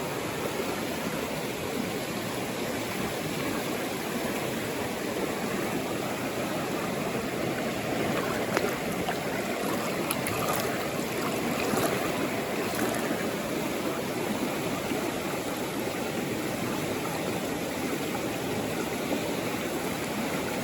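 Mountain valley stream water rushing steadily over rocks, with a few faint clicks about halfway through.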